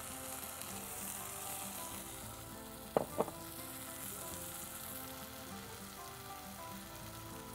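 Chicken pieces sizzling in a pot of hot oil with tomato paste and spices, a steady frying hiss. Two quick knocks about three seconds in.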